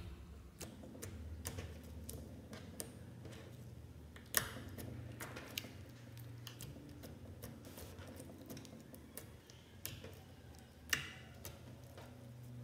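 Clear slime being squeezed and stretched by hand, giving off many small sticky clicks and pops. Two sharper pops come about four seconds in and near the end.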